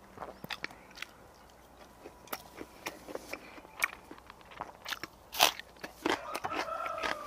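Close-up chewing and crunching of food, with crisp bites into a raw green onion stalk; the loudest crunch comes about five seconds in.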